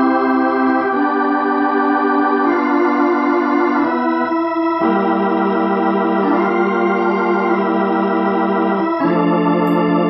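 Recently restored Hammond C-3 organ played through a Leslie 147 rotating speaker: sustained chords that change several times, with one chord held for about four seconds in the second half. The held notes waver as the Leslie rotors turn.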